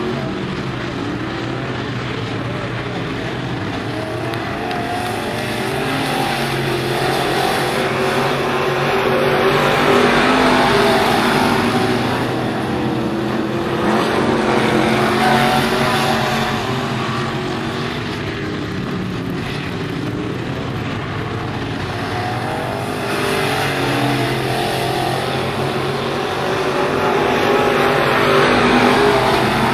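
Dirt modified race cars running at racing speed around a dirt oval, their engines a continuous loud drone that swells and fades as cars pass by, loudest around ten, fifteen and twenty-nine seconds in.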